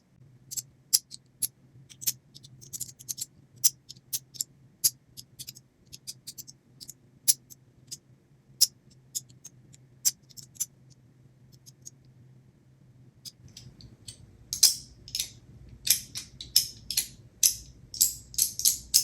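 Sharp, irregular clicks and clacks of a small magnetic fidget toy being worked by hand, snapping between its two magnetic positions. The clicks come about one to three a second, then faster and louder from about two-thirds of the way in.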